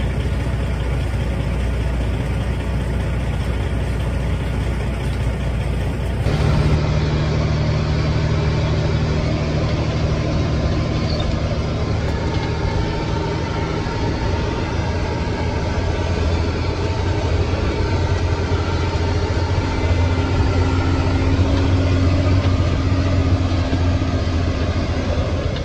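Loaded log truck's diesel engine idling, heard from outside beside the trailer. About six seconds in, the sound changes abruptly to inside the cab as the truck drives, the engine running with a steady low hum.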